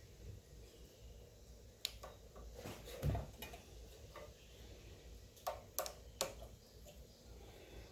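Scattered sharp clicks and light knocks of hand tools and small parts being handled on a small engine, with a louder, duller knock about three seconds in and a quick group of three clicks near the end.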